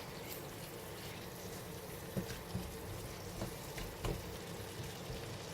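Prawns and chilli paste simmering in a thinned, watery sauce in the pan, a steady bubbling with a few soft knocks about two, two and a half, three and a half and four seconds in.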